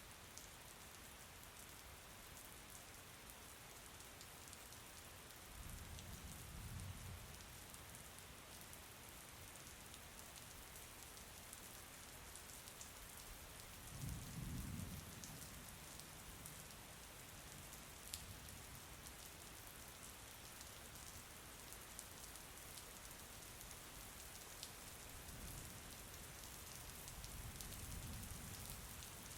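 Steady, faint rain falling, with scattered drop ticks. Three times, about six seconds in, about fourteen seconds in and near the end, a soft low rumble rises and fades.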